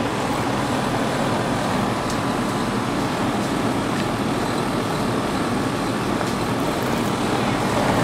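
2001 Carrier TECH2000 2-ton central air-conditioner condenser running in cooling mode, its Copeland scroll compressor and condenser fan making a steady, even hum and rush of air.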